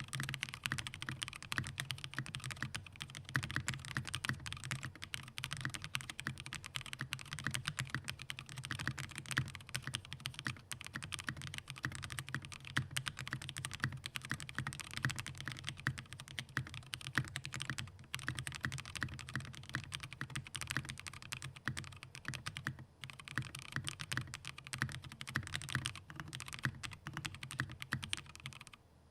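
Fast, continuous typing on a custom mechanical keyboard, a Squishy65 with an aluminium plate and lubed, filmed Durock POM linear switches: a dense stream of keystrokes with only a few brief pauses.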